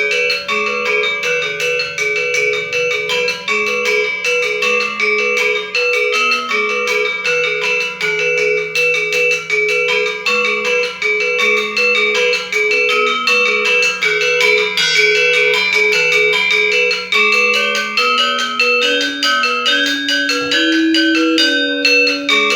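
Balinese gendér, a bronze-keyed metallophone with bamboo resonators, playing the sangsih part of an interlocking gendér wayang piece: a fast, unbroken stream of mallet strikes on the upper keys over a slower melody on the low keys.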